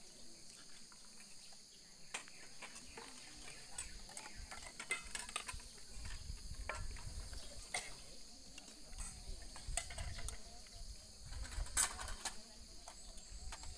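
Steady high chirring of crickets and other insects, with scattered light clinks and taps of serving spoons and dishes against alms bowls; a sharper clatter comes near the end, and a low rumble runs through the middle.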